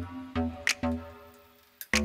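Instrumental background music with a steady beat.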